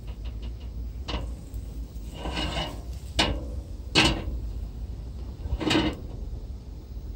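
Hinged stainless wire grill basket being turned over on a barbecue grate: several sharp metal knocks and a scrape, the loudest knock about four seconds in, over a low steady rumble.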